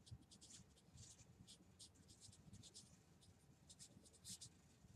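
Felt-tip marker writing on flip-chart paper: faint, short scratching strokes in quick runs with brief gaps between them.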